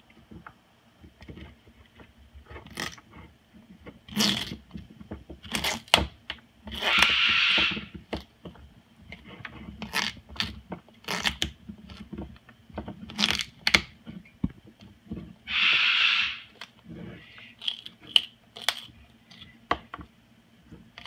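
Moluccan cockatoo chewing and shredding a butternut squash with its beak: irregular sharp crunches and cracks, with two louder rasping noises of about a second each, about a third of the way in and again about three-quarters of the way in.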